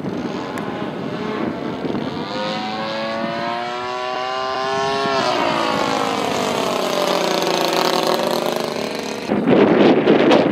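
A 35cc NGH single-cylinder two-stroke petrol engine powers a radio-controlled Sbach 342 aerobatic plane in flight. Its buzzing note climbs in pitch for a few seconds, then falls away. About nine seconds in, a sudden loud rush of wind noise on the microphone mostly covers it.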